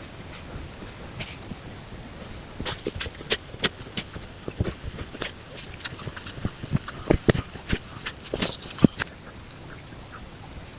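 Irregular knocks, taps and clicks, with a few dull thuds between about four and nine seconds in.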